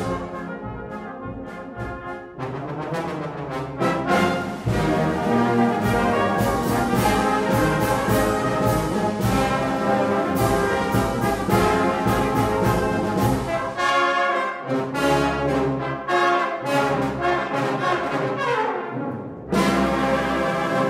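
Brass band music: sustained chords with moving parts, the bass deepening in the second half and a falling run of notes shortly before the end.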